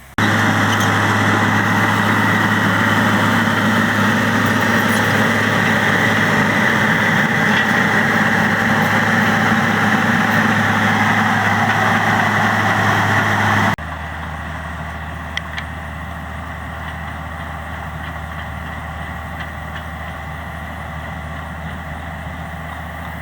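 Diesel engine of heavy earthmoving machinery running steadily, loud and close for about fourteen seconds, then cutting abruptly to a quieter, more distant steady run.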